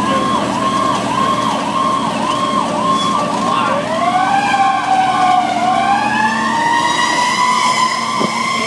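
Fire engine sirens heard from inside the cab: a fast electronic yelp, about three sweeps a second. About four seconds in, a second siren joins with a slow rising wail and the yelp fades beneath it. Diesel engine noise runs underneath.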